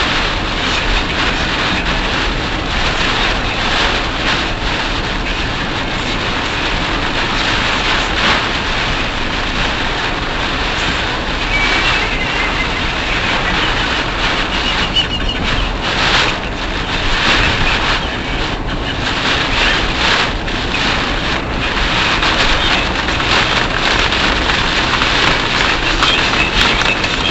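Car driving at expressway speed through typhoon rain, recorded by a dashcam microphone: a loud, steady hiss of tyres on the wet road and rain against the car, surging irregularly.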